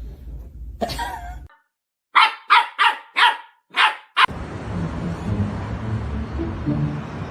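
A dog barking five times in quick succession, short sharp barks. A steady hiss follows.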